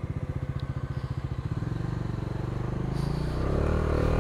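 Bajaj Dominar motorcycle's single-cylinder engine ticking over with an even pulse, then pulling away. It runs smoother and louder, rising in pitch as the bike accelerates near the end.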